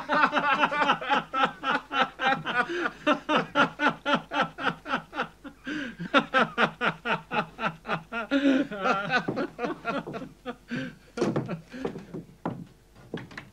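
A man laughing loudly and long, a rapid run of ha-ha pulses about four to five a second that tails off after some ten seconds. A few short knocks follow near the end.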